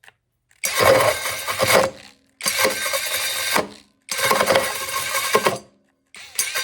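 Mellif 12-volt cordless drill driving a 5-inch hole saw through wood, run in four short bursts of about a second each with pauses between.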